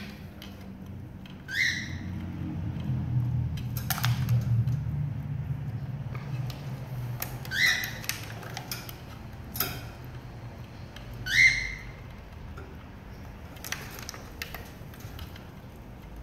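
Black-capped lory giving three short rising squeaks, several seconds apart, while sharp clicks and knocks come from the clear plastic tumbler foraging toy it is pushing.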